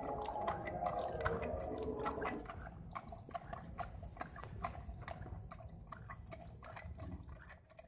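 Miniature metal hand water pump being worked by its handle: a quick run of small metal clicks and knocks from the handle and plunger, with water gurgling and splashing from the spout into a dish, the flow heaviest in the first couple of seconds.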